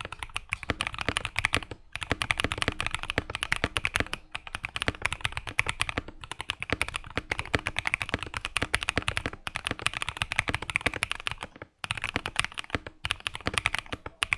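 Fast typing on a Freebird60 mechanical keyboard with stock Epsilon switches, PBT keycaps and an FR4 plate: a dense run of clean keystroke clacks, broken by a few brief pauses.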